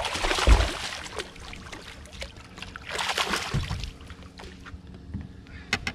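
A hooked largemouth bass thrashing and splashing at the water's surface beside the boat as it is played in: two bursts of splashing, the second about three seconds in, over a faint steady hum. A short sharp knock comes near the end.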